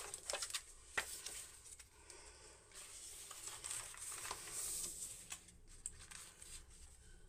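Paper rustling and crinkling as a printed booklet (zine) is opened and its pages are turned and pressed flat by hand, with a sharp tick about a second in.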